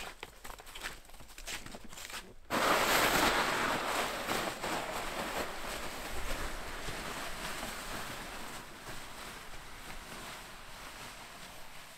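Snowshoe footsteps crunching in snow for the first couple of seconds. Then, suddenly, a much louder steady rushing, crackly noise takes over and slowly fades.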